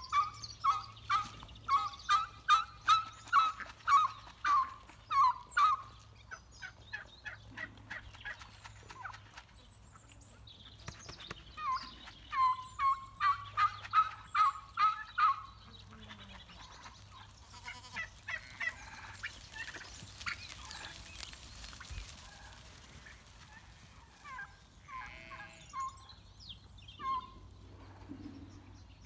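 Domestic turkeys calling in runs of short, sharp calls at about two a second, loudest in the first few seconds and again about halfway through, with a few scattered calls near the end.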